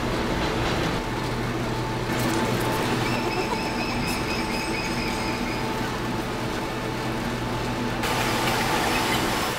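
Steady low machinery hum under a rushing noise, with a faint higher whine for a few seconds in the middle: a large ship's engines and ventilation heard from its deck.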